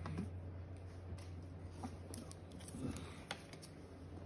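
Hard plastic graded-card slabs being set onto a stack, giving a few faint, sharp clicks over a steady low hum.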